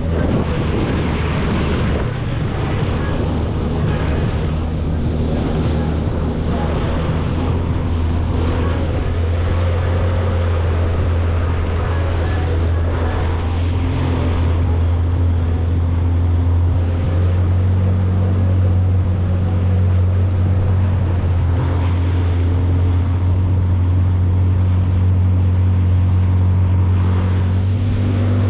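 Jet ski engine running steadily at cruising speed, with water spray and wind noise over it; the engine note rises slightly a little past halfway.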